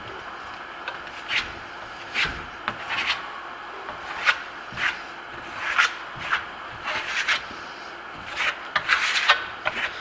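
Steel plastering trowel scraping over wet Grasello Venetian plaster, a dozen or so short strokes at irregular intervals. A very thin, tight compression coat is being laid on, pressing the plaster smooth to burnish it.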